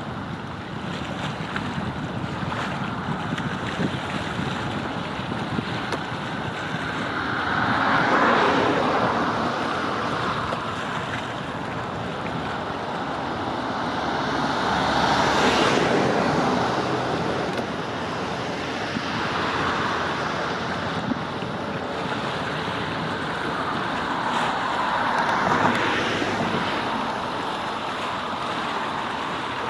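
Steady rushing noise of wind and water, swelling louder three times, several seconds apart.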